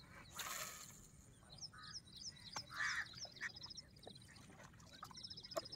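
Birds chirping in rapid, repeated short high notes, with a few louder, lower calls mixed in. A brief hiss is heard about half a second in.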